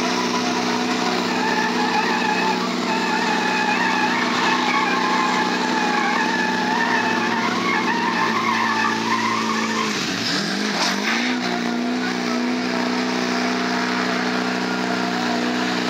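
Pickup truck engines running hard under load while tires spin and squeal on wet pavement in a truck tug-of-war. About ten seconds in, the engine note drops sharply and climbs back.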